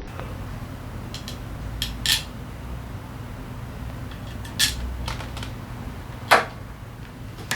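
Metal tools and engine parts clinking during engine disassembly: a handful of short, sharp clinks, the loudest about six seconds in, over a steady low hum.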